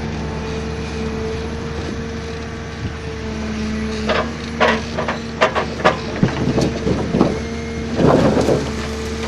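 Heavy forestry machine's diesel engine running steadily, joined from about four seconds in by a string of sharp knocks and clatter, as of logs or wood being handled, loudest near the end.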